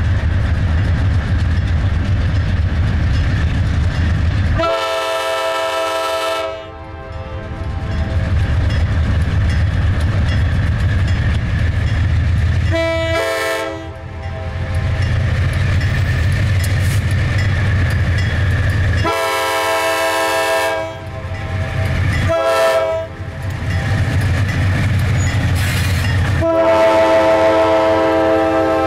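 Horn of a CSX diesel freight locomotive sounding five chord blasts, long and short in turn, the last one held as the lead units come by. Under it runs the steady low rumble of the diesel engines.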